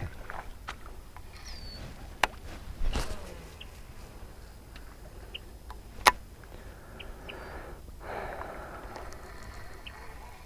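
Baitcasting reel being worked through a cast and retrieve: sharp clicks about two and six seconds in, the second the loudest, a short rush of noise about three seconds in, and a stretch of reel winding near the end. Short bird chirps come in between.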